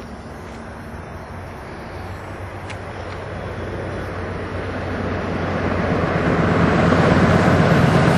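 Class 40 diesel-electric locomotive approaching at speed under full power, its English Electric 16-cylinder engine note growing steadily louder as it nears.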